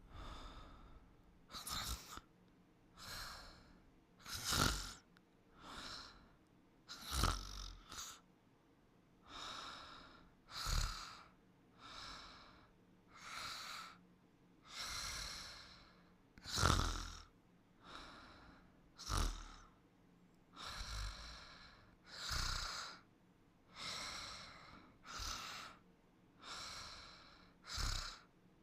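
A sleeper snoring rhythmically, a noisy breath about every one and a half seconds, some breaths stronger than others.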